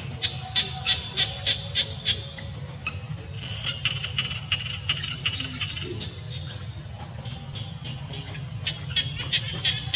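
Sharp high chirping calls repeated about three times a second, in runs of a few seconds that stop and start again, over a steady low rumble.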